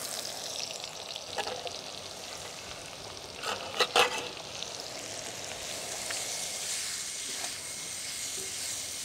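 Sliced onions sizzling as they fry in hot oil in an iron kadai on a portable gas burner. A few sharp knocks come about four seconds in, and a metal spatula stirs the onions near the end.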